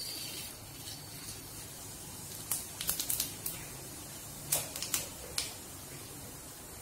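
Whole cumin seeds sizzling in hot oil with bay leaves and dried red chillies during tempering: a hiss as the seeds go in, then a string of sharp crackling pops from about two and a half seconds in as the seeds splutter.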